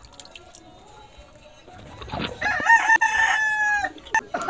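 A rooster crowing once, starting about two seconds in: a wavering opening, then a held note that falls away at the end.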